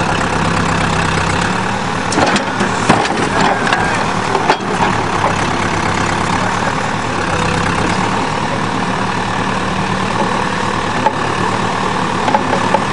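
Backhoe's diesel engine running steadily, with a few sharp knocks about two to five seconds in as the machine works against the van.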